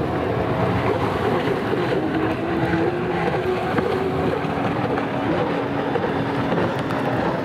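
Racing stand-up jet ski engines running at speed, the engine note stepping up and down as the throttle changes, over a steady rush of spray and wind.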